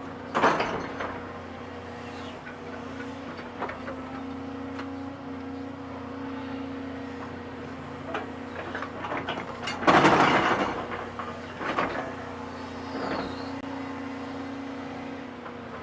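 Excavator diesel engine running steadily while its toothed bucket digs a trench in clay. There are loud clattering scrapes of the bucket about half a second in and again around ten seconds in, with a couple of smaller knocks after.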